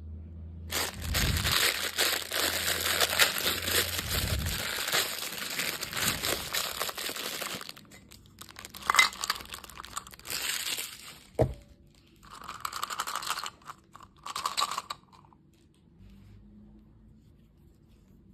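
Candy packaging being torn open and crinkled by hand: a long stretch of tearing and rustling, then several shorter crinkles, with a sharp click about eleven seconds in.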